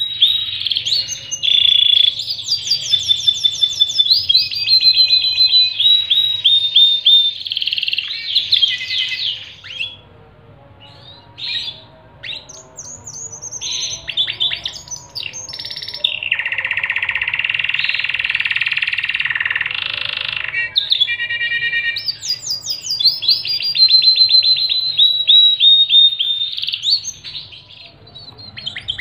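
Pied domestic canary singing: long runs of rapid trills and chirps, breaking off about a third of the way in, then a dense rolling trill in the middle before the quick trill runs return.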